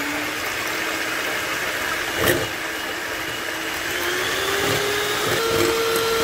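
Electric hand mixer running, its beaters whipping eggs in a glass bowl until they foam. The motor's whine steps up in pitch about four seconds in and again shortly after, with a single knock a little after two seconds.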